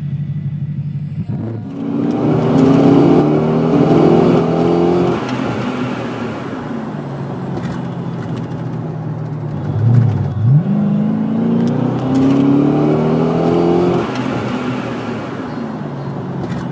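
Dodge Charger's engine heard from inside the cabin, accelerating hard on the freeway: the engine note climbs in pitch and steps up through the gears from about two seconds in, dips, then revs up quickly again around ten seconds and pulls through the gears once more.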